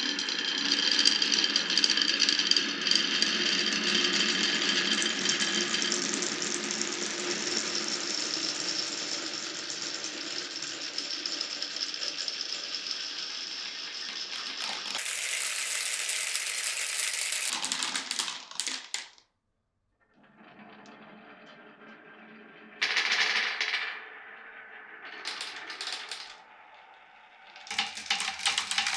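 Glass marbles rolling and clattering through a wooden marble run: a dense, continuous rattle of rapid clicks with ringing tones for the first half. It cuts off suddenly about two-thirds of the way through, and after a short silence quieter rolling returns with a few louder spells of clatter.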